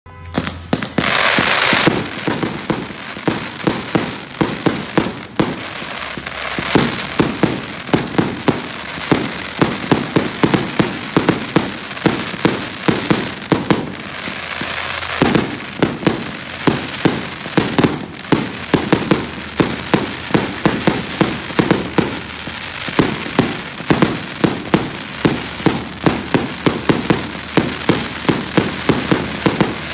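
Kong's Country 88-shot firework cake firing a long, steady string of sharp bangs, two to three a second, as each tube launches and breaks overhead. A short hiss comes about a second in, as it starts.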